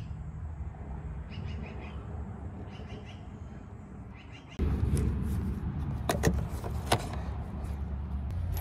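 Coolant being poured from a jug into a car's coolant expansion tank, over a steady low hum that suddenly gets louder about halfway through, with a few sharp clicks after that.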